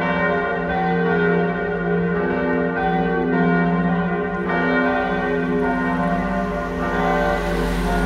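Church bells of the Katholische Hofkirche in Dresden pealing: several bells strike in turn about every second, and their tones ring on and overlap in a dense, steady sound.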